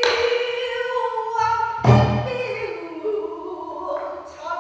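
Pansori singer holding and bending a long sung line, with strokes of the buk barrel drum: a sharp stroke at the start and a heavy low one about two seconds in.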